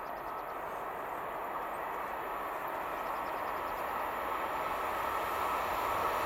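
Electric freight train approaching from a distance, its rolling rumble growing steadily louder.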